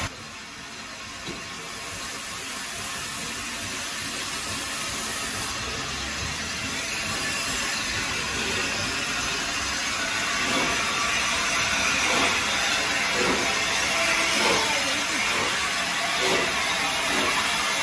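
Peppercorn A1 steam locomotive No. 60163 Tornado passing close by with its coaches, steam hissing and growing louder. From about ten seconds in, a regular beat comes in about twice a second.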